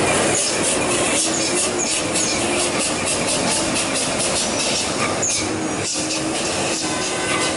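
Heavy truck traffic on a steep hairpin: big diesel engines running under load with a steady rumble and frequent clattering.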